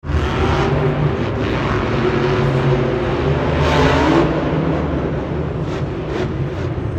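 Black Pearl monster truck's supercharged V8 engine revving hard during a freestyle run. It swells louder with a rising pitch about four seconds in, as the truck takes air off a ramp.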